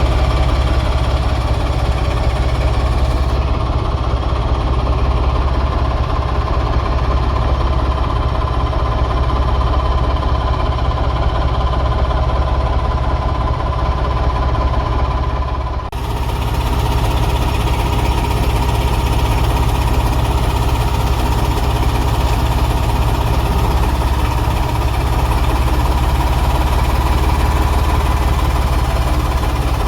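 Heavy diesel engine running steadily with a deep, even rumble and a faint steady whine above it. The sound dips briefly and shifts slightly about halfway through.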